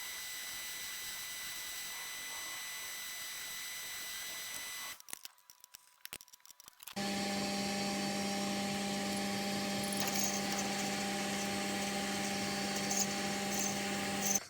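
Boxford metal lathe running steadily while a hole is drilled through the spigot. It stops about five seconds in, and after a short gap starts again with a louder, steady hum.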